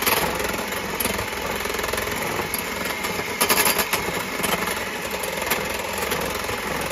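Electric mixer running steadily, whipping egg whites in a bowl; the whites are almost beaten to stiff peaks.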